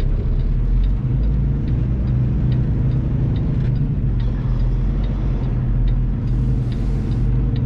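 Semi-truck's diesel engine running steadily at low speed through a turn, heard inside the cab, with a light regular ticking over it.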